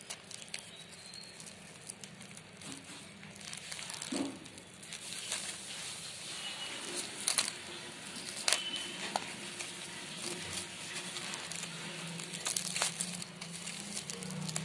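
Plastic bubble wrap crinkling and crackling as it is handled and cut open with a utility knife, with scattered sharp snaps throughout.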